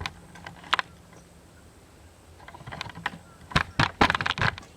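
Scattered clicks and knocks of hands working with the old outboard starter motor and its parts, with a quick clatter of them near the end.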